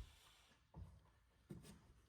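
Near silence: room tone with two faint short knocks, one under a second in and one about a second and a half in.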